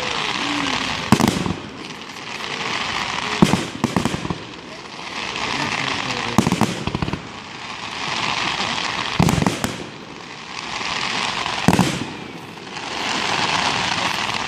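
Aerial fireworks going off: about six sharp bangs, one every two to three seconds, with a hissing crackle that swells and fades between them.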